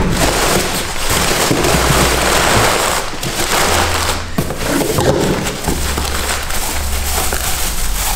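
Packaging crackling and rustling as parcels of goods are unpacked by hand, over background music with a bass line.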